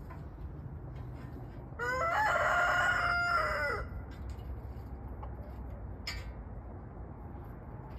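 A rooster crowing once, starting about two seconds in: a single pitched call about two seconds long that rises at the start and drops away at the end.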